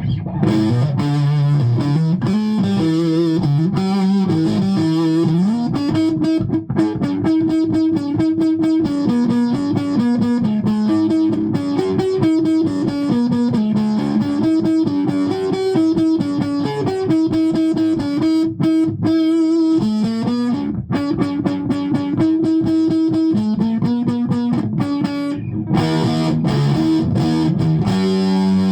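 Electric guitar played through a Laney LA30BL valve combo amp, a riff of changing notes with a driven tone. The sound carries a sweeping, flanger-like coloration that the amp is producing on its own, a fault whose cause the owner does not know.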